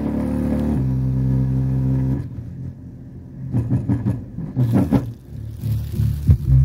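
A song played through a bare 5.25-inch, 8-ohm subwoofer driver powered by a TDA2030 mono amplifier board, as a bass test. A deep held bass note lasts about two seconds, then a run of shorter low thumps follows. The driver is hitting pretty hard, though not very loud, since it has no enclosure.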